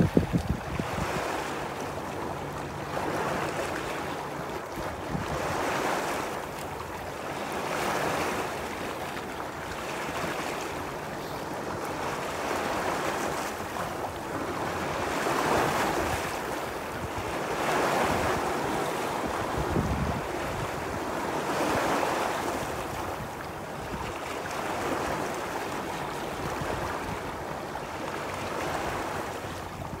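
Lake Superior waves washing and splashing against shoreline rock, surging every two to three seconds, with a louder surge at the very start. Wind buffets the microphone now and then.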